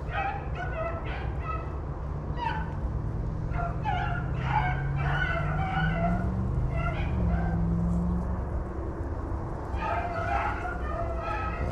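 A pack of rabbit-hunting hounds baying and yelping on a running rabbit's track, several voices calling in quick, overlapping bursts.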